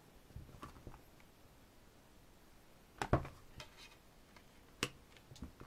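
Handling of a CD and its hardcover album case: a few light knocks and taps, the loudest about three seconds in and another near five seconds.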